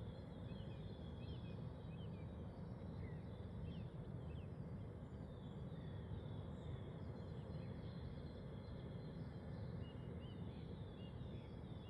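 Birds calling at night: many short, high chirps and quick slurred notes scattered throughout, over a steady low background noise.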